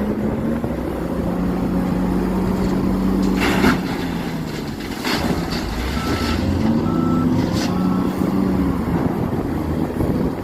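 Heavy diesel excavators working, engines rising and falling in pitch as they take load. Several clanks come about three and a half seconds in, the loudest near four seconds, with more around five and seven and a half seconds. A few short high beeps sound near the end.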